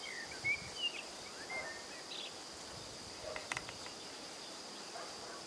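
Outdoor countryside ambience: a steady high insect buzz, like crickets or grasshoppers, with a few short bird chirps in the first two seconds and a brief run of clicks about halfway.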